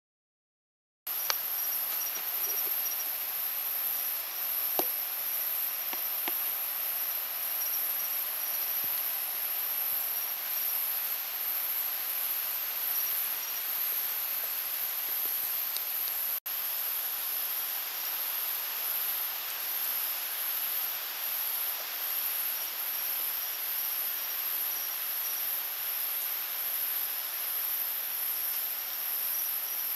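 Night insect chorus in rainforest: a steady, very high-pitched trill with a second, lower trill beneath it over a soft hiss. It starts about a second in and drops out for an instant a little past the middle.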